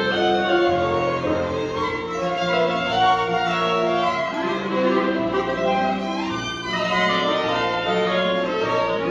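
Live chamber quintet of clarinet, two violins, piano and harp playing together, with bowed violin lines prominent among sustained, overlapping notes.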